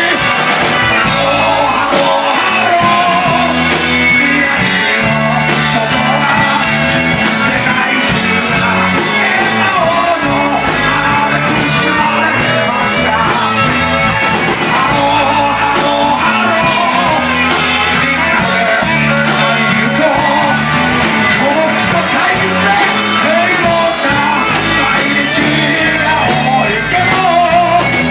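Rock song playing: band with guitar, bass and drums, with shouted singing over it.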